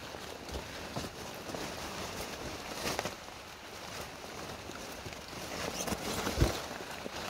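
Footsteps and rustling through wet salal brush, with scattered crackles of leaves and stems and a heavier thump about six seconds in.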